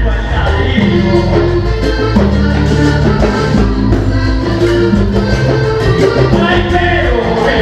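Live vallenato band playing an instrumental passage: accordion melody over electric bass and fast, even percussion.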